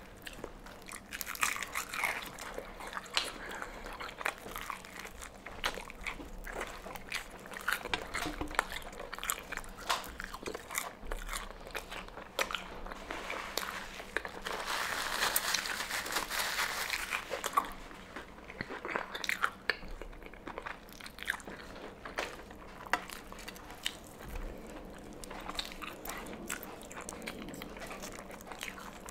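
Close-up eating of Popeyes fried chicken: the crispy breading crunching and crackling under bites and fingers, with chewing between. About halfway through comes a few seconds of paper napkin rustling.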